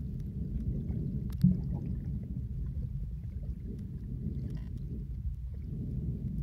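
Low, muffled rumble of moving water picked up by a camera held underwater, with one sharp knock about one and a half seconds in.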